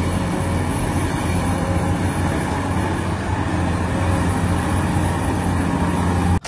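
Large Caterpillar hydraulic excavator's diesel engine running steadily as it works, a loud, even mechanical din with a strong low hum. It cuts off abruptly near the end.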